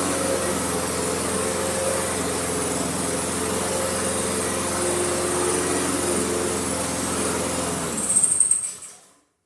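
Yard-Man mower's Honda 5.5 horsepower engine running steadily, then cutting out about eight seconds in and spinning down to a stop. It is a mower brought in as a no-start that now runs.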